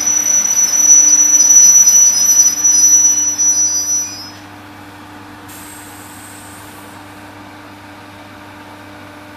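An ER2 electric commuter train running into the platform with a loud rumble and a steady high-pitched squeal from its braking wheels. The noise cuts off sharply about four seconds in as the train stops, leaving a low steady hum.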